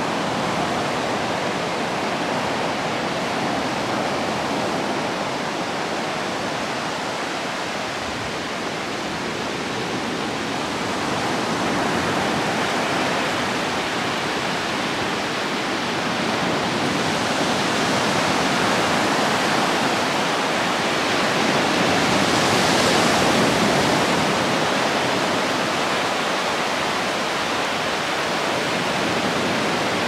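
Small sea waves breaking and washing up a sandy beach: a steady rush of surf that swells louder now and then, most strongly about two-thirds of the way through.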